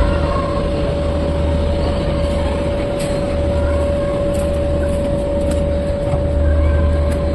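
Garib Rath Express coach rolling slowly along a station platform, heard from its open door: a continuous low rumble with a steady high whine held throughout, and a few light clicks.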